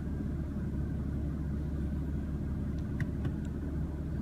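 The 2016 BMW M3's twin-turbo inline-six idling steadily, heard as a low rumble inside the cabin, with a few faint clicks about three seconds in.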